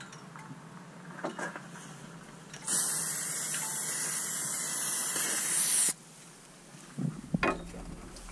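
Aerosol spray can hissing as it sprays a single continuous burst of about three seconds onto engine-bay plastics, then cutting off abruptly. A few light knocks follow near the end.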